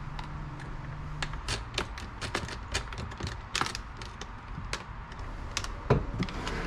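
Irregular clicks, taps and light rattles of hands working a lithium battery's wiring and terminals inside a plastic hard case, with one louder knock near the end. A steady low hum stops about a second and a half in.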